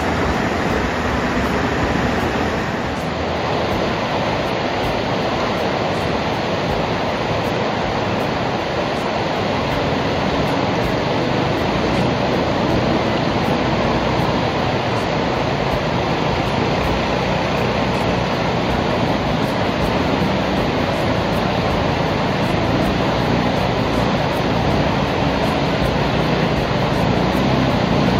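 Steady rushing of a flooded, muddy river pouring through rapids. Near the end a longboat's outboard engine begins to come through low under the water noise.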